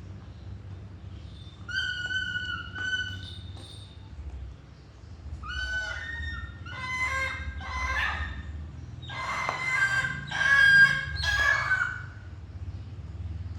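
A bird calling: two short calls, then a run of louder, harsh calls.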